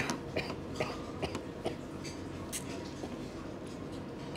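Chopsticks clicking and tapping against a bowl as chili oil is stirred through noodles: a sharp click, then a handful of light taps over the first few seconds, over steady room noise.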